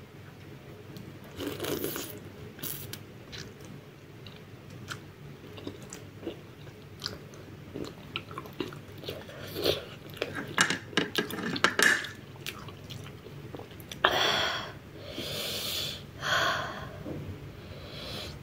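Close-up eating sounds of spicy noodles: a slurp, then wet chewing with scattered lip smacks and clicks that come thicker in the middle. Near the end come a few loud breathy hisses.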